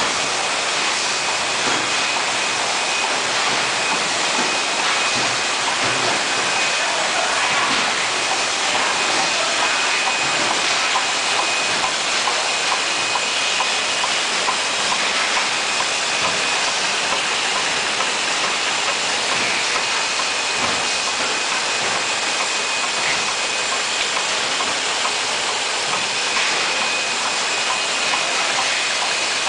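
Running bottling line with a rotary hot-melt glue labeling machine: a steady, dense mechanical hiss and clatter of conveyors and star wheels moving bottles, with a thin steady high whine and faint scattered ticks.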